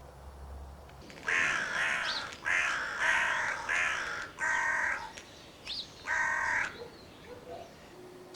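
Fearnot crow call blown by mouth, giving about six caws in imitation of a crow: four in a close run, then a short one and a final one.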